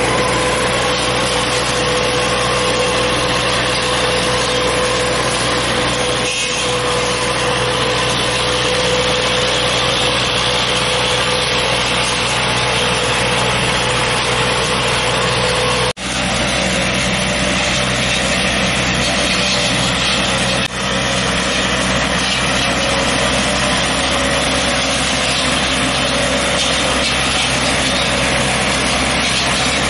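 Tractor engine running steadily while it drives a tractor-mounted hydraulic orchard pruning machine. The sound drops out for an instant twice, just past halfway.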